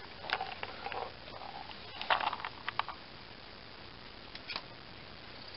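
Hand work on a lawn tractor engine's carburetor and intake: small metal parts and bolts being handled, a cluster of light clicks and rattles in the first three seconds, then two faint clicks about four and a half seconds in. The engine is not running.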